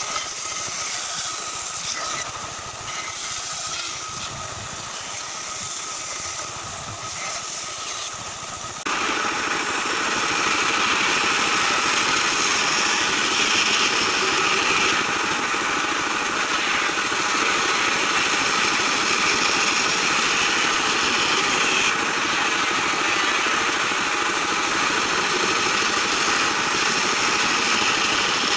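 Bandsaw running and cutting through thick acacia wood, a steady motor hum with the blade rasping in the timber. About nine seconds in, the sound abruptly gets louder and harsher, then holds steady.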